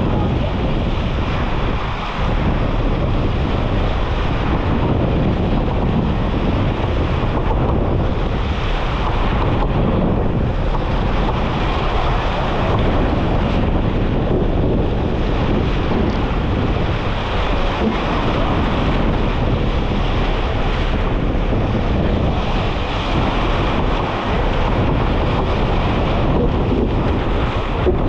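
Strong wind, around 25 knots, buffeting a GoPro's microphone, over the steady rush of waves and water around a J/99 sailboat sailing in rough seas.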